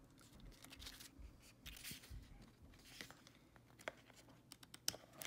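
Faint rustling of paper pages in a small hardcover guidebook being handled and turned, with quicker flicks of pages near the end.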